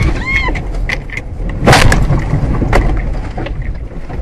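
Car crash heard from inside the dash-cam car: a brief squeal, then a heavy impact about a second and a half in, followed by crunching and rattling knocks as the car is thrown off the road.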